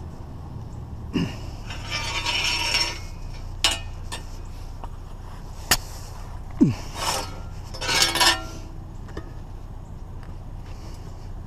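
Objects being handled: scraping about a second in and again near the end, a few sharp clicks and a short falling squeak, over a steady low hum.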